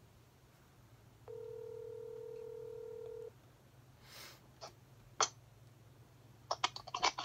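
Phone ringback tone through a mobile phone's speaker: one steady two-second ring about a second in while an outgoing call waits to be answered. A few sharp clicks follow near the end.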